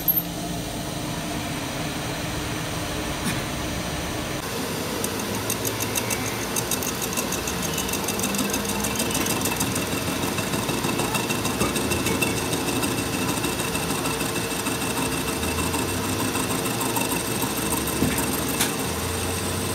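Metal lathe running with a welded truck axle shaft spinning in its chuck: a steady mechanical hum with a high, even whine. About four and a half seconds in, a higher hiss joins it as the weld on the shaft is turned down.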